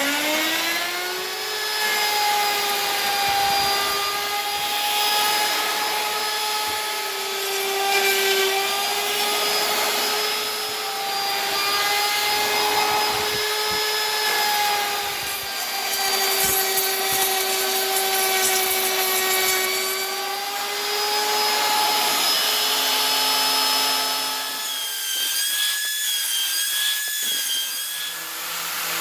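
Wood router (trimmer) motor spinning up with a rising whine, then running at a steady high whine over a rough cutting noise as it routs wood, its pitch dipping slightly now and then under load and wavering near the end.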